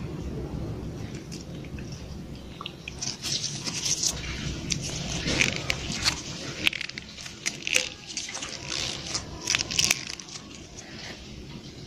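Kittens licking and lapping at a squeezed tube of creamy tuna cat treat: a run of small wet smacks and clicks, thicker from about three seconds in and thinning out near the end.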